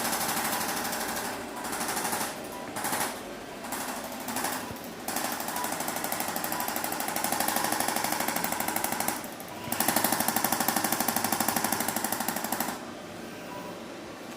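A rapid motorised hammering, typical of a handheld electric percussion massager or adjusting device working on the back. It starts and stops several times in short spells, then runs longer and cuts off near the end.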